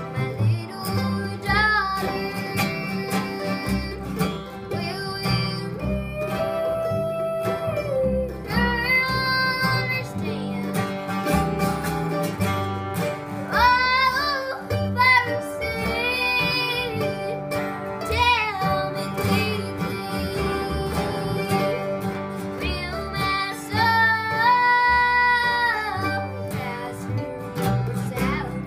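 Acoustic string band of mandolin, two acoustic guitars and upright bass playing a country-style song, with a girl singing the lead.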